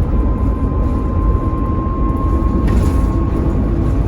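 Mercedes-Benz Citaro O530 bus on the move, heard on board: low engine rumble under a steady high whine from its 'vocal' ZF automatic gearbox, creeping slightly up in pitch. A brief sharp noise comes a little under three seconds in.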